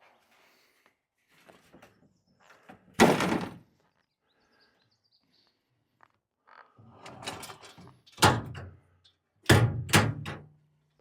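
Several heavy thumps: one loud one about three seconds in, then a cluster of three or four near the end.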